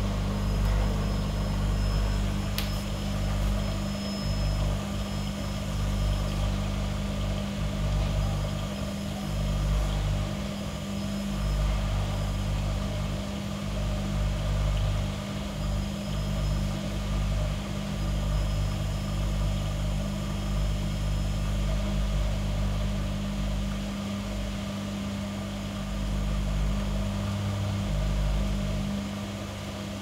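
Gorenje WA65205 washing machine's drum motor turning a heavy wet king-size duvet in the spin cycle, a low rumble that swells and eases every few seconds as the drum works the load. A vacuum cleaner hums steadily in the background.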